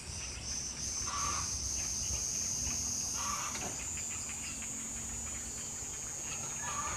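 Outdoor insect chorus, a steady high-pitched buzz that pulses for the first second or so, then runs continuously and rises slightly in pitch about halfway through. Three short, lower-pitched calls sound over it, about a second in, around three seconds in and near the end.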